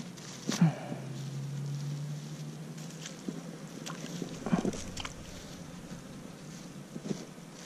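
Short rustles and crunches as gloved hands pick dead crawfish off the grass and drop them into a plastic bag, over a faint low hum in the first few seconds.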